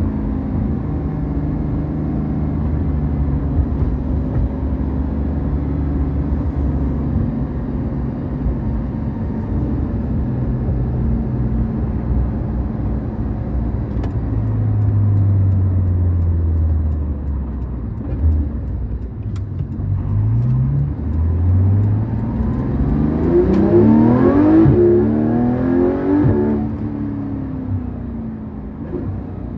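Porsche 991.2 911 GT3 RS's naturally aspirated 4.0-litre flat-six heard from inside the cabin, running at low revs while cruising. About two-thirds of the way through it revs up hard, the pitch climbing for several seconds before the revs drop away and it settles back to a lower note.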